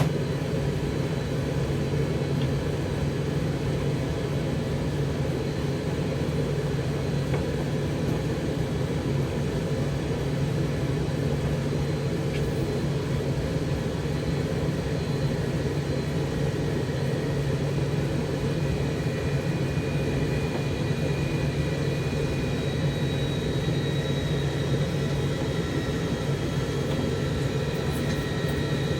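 Zanussi TD162 compact tumble dryer, built by White Knight, running with a steady low hum.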